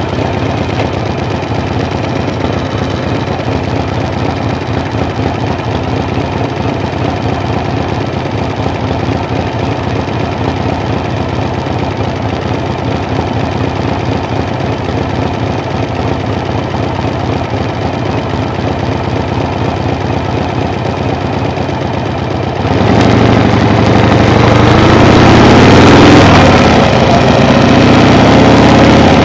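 An engine running steadily. About three quarters of the way in it gets louder and its pitch rises and falls.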